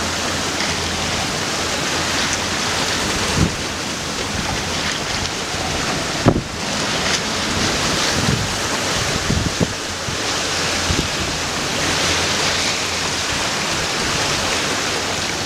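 Steady rush of wind and breaking sea around a small sailing yacht under way in rough water, with wind buffeting the microphone. A few brief knocks stand out over the noise.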